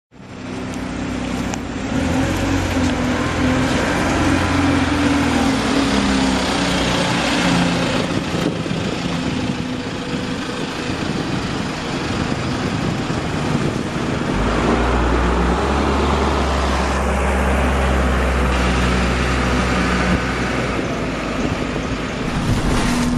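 Alexander Dennis Enviro200 Dart bus running, with the loud ticking noise it is known for mixed into the engine sound. The engine's low hum shifts about fourteen seconds in.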